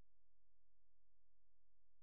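Near silence: a faint, unchanging background with no scraping or other sound heard.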